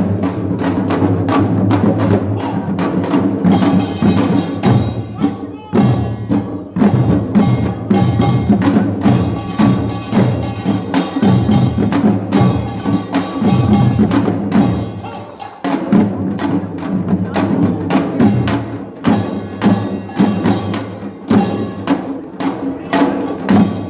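Korean nongak percussion band playing: fast, dense strikes of gongs and drums over steady ringing tones, easing for a moment about two-thirds of the way through before picking up again.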